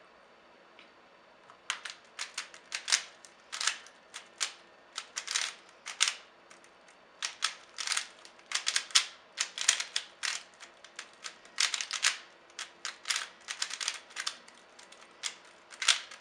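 Cyclone Boys 3x3 speed cube being turned rapidly during a speedsolve: irregular runs of quick plastic clicks and clacks, starting about a second and a half in.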